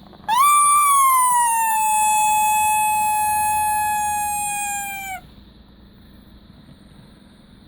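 Rubber teddy-bear squeaky toy giving one long squeak, about five seconds long. The pitch jumps up at the start, sinks slowly and steadily, then cuts off suddenly, as air is pressed out through the toy's squeaker.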